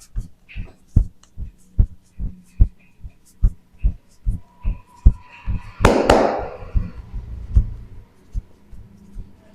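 Even rhythm of low thumps, about two and a half a second, with one loud sharp crack about six seconds in followed by a brief rush of noise.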